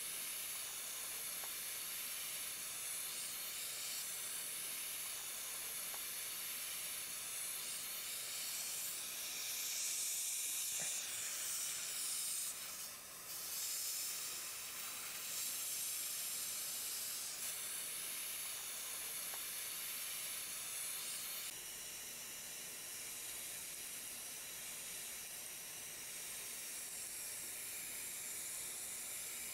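Steady high-pitched hiss of a dental suction tip drawing air and saliva from the mouth during the procedure, dipping slightly in level about two-thirds of the way through.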